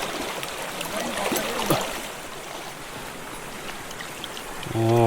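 Mountain stream flowing steadily, an even wash of running water; a man's voice comes in near the end.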